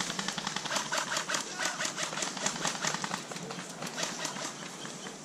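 Airsoft guns firing: rapid sharp snapping shots, several a second, thickest in the first three seconds and thinning out toward the end.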